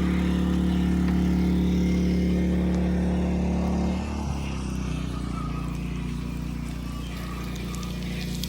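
A motor engine running steadily with an even low hum; about four seconds in it drops in level and settles to a slightly different steady pitch.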